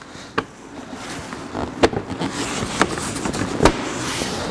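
Plastic fog light cover being pushed into the front bumper, with four sharp clicks as its clips snap in over a rustle of plastic being handled.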